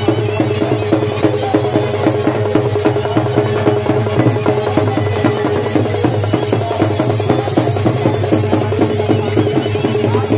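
Folk drumming: fast, continuous drum beats over a steady drone.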